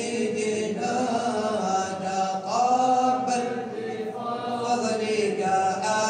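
Traditional Annaba religious chanting in the malouf modes: a voice singing long held, melismatic notes that glide slowly in pitch, with a rise about two and a half seconds in.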